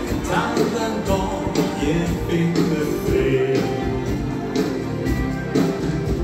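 Norwegian dance band (dansband) playing live, with a steady beat.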